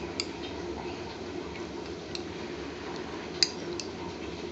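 A few light clicks of kitchenware, the loudest about three and a half seconds in, over a steady low background hum.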